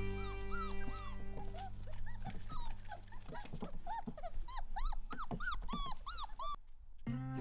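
A litter of five-week-old Weimaraner puppies whining and yelping, with many short, high-pitched cries that rise and fall and overlap one another. Background music fades out in the first couple of seconds, and the cries stop shortly before the end.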